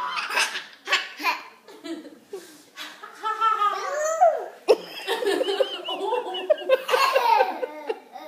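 A toddler and adults laughing in repeated bursts, with a high, rising-and-falling squeal of a laugh about halfway through and a quick run of short laughs near the end.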